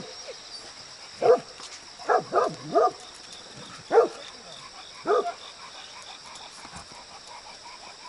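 Golden retriever barking aggressively at an unfamiliar dog: about eight short, sharp barks over the first five seconds or so, some in quick runs of two or three, then it stops.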